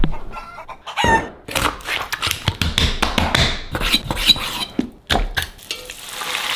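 A chicken calling over and over in quick, uneven bursts, with a short rising cry about a second in.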